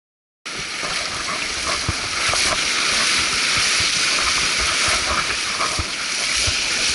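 Shallow sea surf washing up a sandy beach, the foam hissing steadily, with irregular low thumps. It cuts in abruptly about half a second in.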